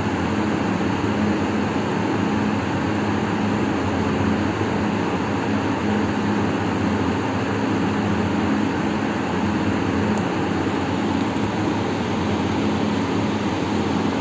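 A machine running steadily: an even rush of noise with a low hum, unchanging throughout.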